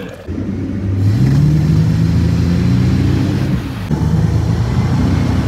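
Axis A22 wake boat's inboard engine accelerating to tow a wakeboarder. It picks up about a second in, dips briefly near four seconds, then runs steadily under load.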